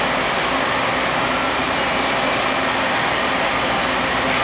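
Sinker EDM machine running: a steady mechanical hum and hiss with a few faint steady tones over it.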